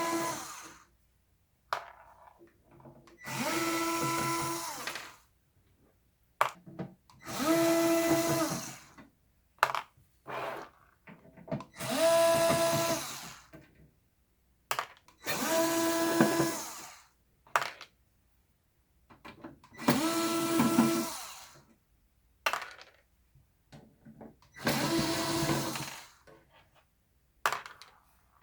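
Worx WX240 4-volt cordless screwdriver's motor whirring in six short runs of one to two seconds each, about every four seconds, driving screws while an electronic device is taken apart. Small clicks from handling the screws and device come between the runs.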